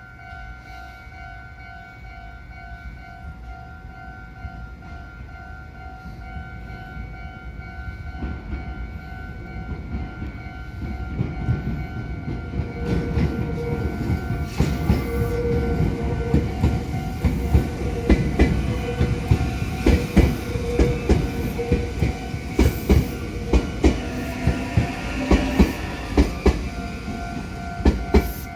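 Japanese level-crossing warning bell ringing in a steady repeating pattern while a Meitetsu electric train approaches. Its rumble builds from about eight seconds in, then it passes with a run of wheel clacks over the rail joints, loudest near the end.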